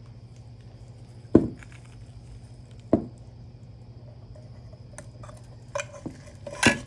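Metal fuel-pump case and parts of an outboard's fuel pump assembly handled and set down on a wooden workbench. There are two sharp knocks about a second and a half apart, then a few lighter clicks near the end, over a steady low hum.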